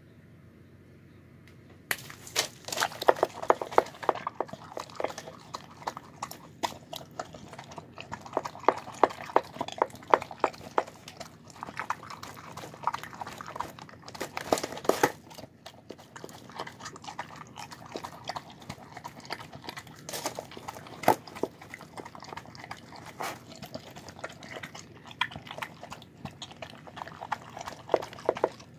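A bulldog eating a meal of rice, cabbage and chicken from a bowl: rapid, wet chewing and lip-smacking clicks in uneven clusters, starting about two seconds in.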